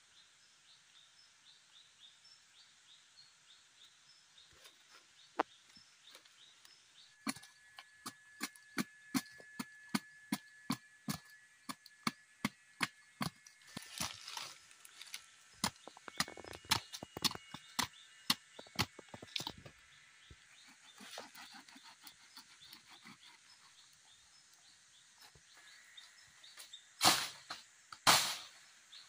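Sharp knocks, about two a second, from about seven seconds in until about twenty seconds, over a steady high background hum of forest. Near the end there are two loud rustling bursts.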